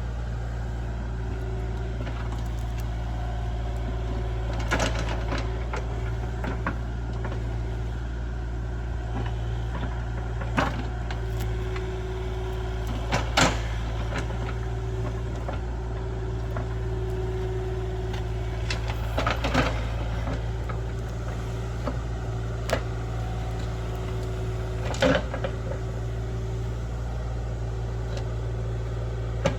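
Heavy excavation machinery's diesel engine running steadily, with several sharp metallic clanks spread through.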